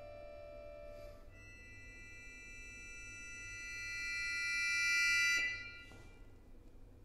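Solo accordion playing a held low note, then from about a second in a thin, high cluster of sustained notes that swells in a long crescendo. The cluster cuts off suddenly about five and a half seconds in.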